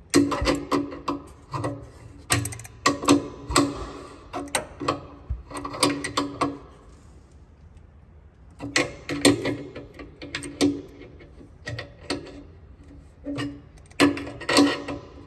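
An adjustable wrench tightening a fitting into a truck's steel air tank: repeated metallic clicks and clinks of the wrench working on the fitting. They come in two busy spells with a lull around the middle.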